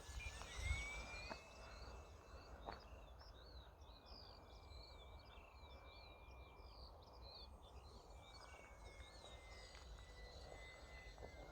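Faint, thin whine of the micro RC plane's small electric motor and propeller at full throttle, its pitch rising at first, then drifting slowly down and back up as the plane flies about. Birds chirp rapidly and over and over behind it, over a low wind rumble.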